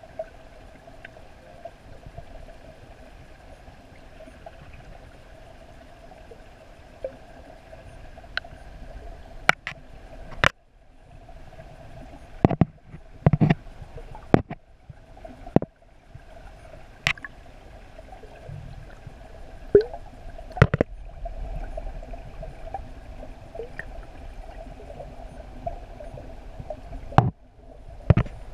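Underwater sound in a sea-turtle tank: a steady hum with water gurgling, broken by about a dozen sharp knocks, most of them in the middle of the stretch, as young green sea turtles bump the submerged camera.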